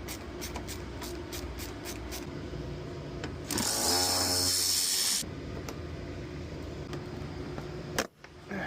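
A run of quick clicks, about five a second, then a cordless power tool runs briefly, for about a second and a half, while fasteners are taken out of rear trim panels.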